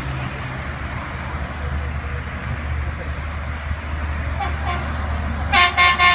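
A train running with a steady low rumble, then a locomotive horn sounds near the end in a few quick short blasts that run into a long one.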